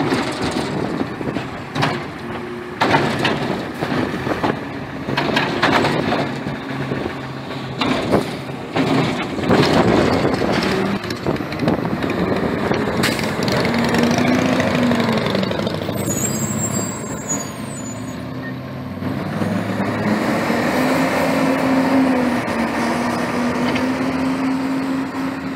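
CNG-powered Bridgeport side-loader garbage truck. Knocks and clanks come through its running engine in the first half. Later the engine pitch rises, drops and rises again as the truck pulls away and shifts gear.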